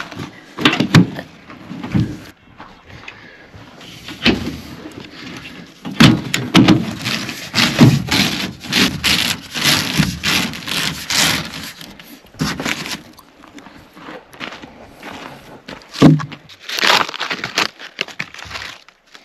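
Dry dead branches being snapped and broken by hand for firewood: a run of sharp, irregular cracks and crackling, densest in the middle, with louder single snaps about a second in and near the end.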